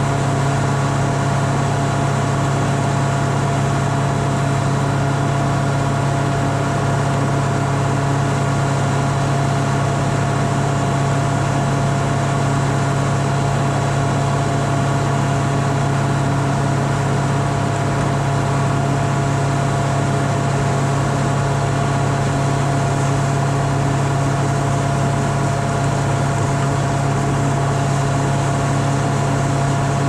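Gehl 100 grinder-mixer running off a John Deere tractor, grinding grain for cattle feed: a loud, steady machine hum with a constant tone that never changes.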